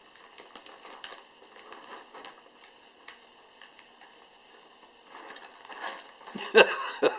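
Paper crinkling and rustling as a Christmas present is unwrapped, in small scattered crackles that grow louder and busier near the end.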